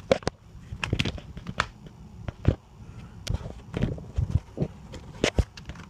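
Handling noise: irregular clicks, knocks and rustles as the paper instruction booklet and its packaging are picked up and moved about.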